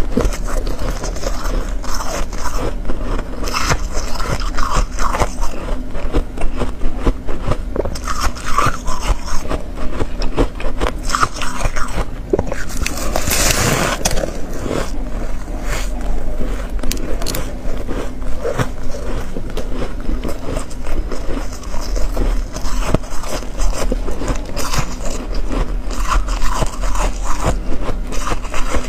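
Close-miked crunching and crackling of ice chunks being bitten and chewed, dense and irregular, with one louder crunchy bite about halfway through.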